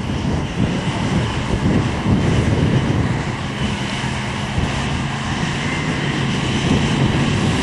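A 4x4's engine running at a steady pitch, with a constant hum and noise over it, a little louder from about two seconds in.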